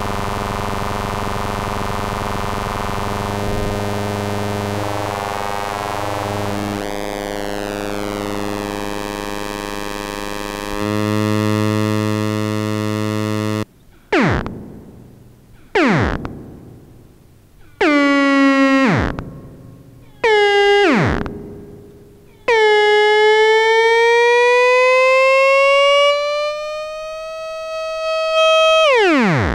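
PAIA 4700-series analog modular synthesizer playing. First a sustained buzzy drone rich in overtones, with a filter sweep gliding down about 7 s in. Then at about 14 s it switches to a new patch: short notes every two seconds or so that dive steeply in pitch as they fade, then a long note that glides slowly upward before plunging near the end.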